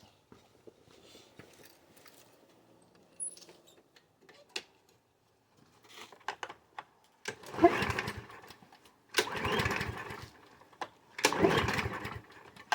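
Craftsman lawnmower engine being pull-started three times, each pull turning the engine over briefly without it catching. This is a mower left sitting unused, whose owner thinks the carburetor jet is clogged.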